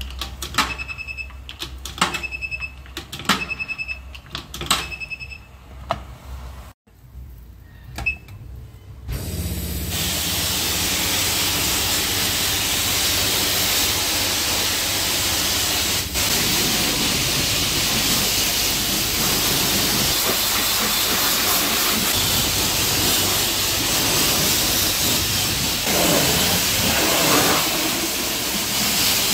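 The wash bay's coin-operated control box beeps four times with clicks as coins go in. From about nine seconds in, a high-pressure car wash lance sprays water onto the car with a steady loud hiss.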